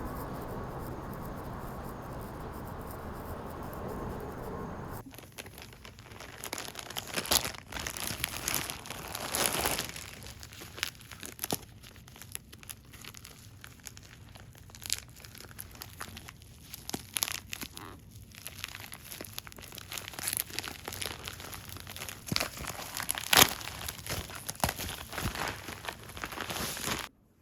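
About five seconds of steady noise, then irregular crinkling, rustling and sharp clicks of packaging being handled during food preparation, stopping abruptly at the end.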